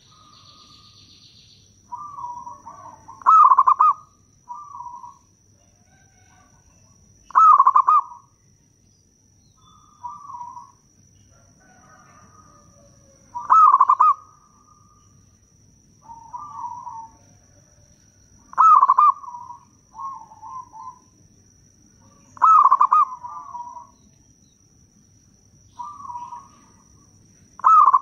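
Zebra dove (perkutut) singing: a loud, rapid cooing phrase every four to six seconds, with softer cooing notes in between.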